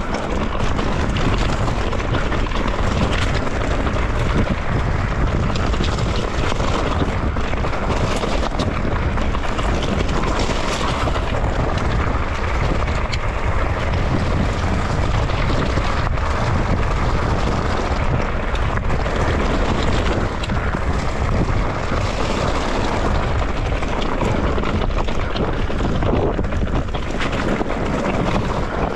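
Wind buffeting the camera microphone over a steady low rumble from a mountain bike rolling along a rough trail, with a few brief knocks.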